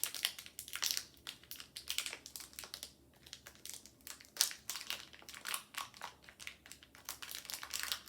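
Plastic candy-bar wrappers crinkling as they are handled: a run of irregular sharp crackles, one louder about four and a half seconds in.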